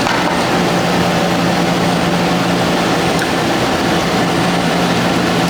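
Steady, loud machinery hum with a constant low drone, from the equipment running in a boiler room.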